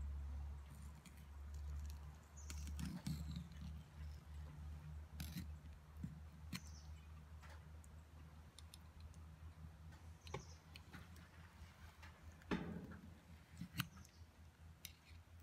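Faint scattered clicks and soft scraping as a knife and fingers work along the skin of a scalded piglet carcass's swollen belly, with a slightly louder knock about twelve seconds in.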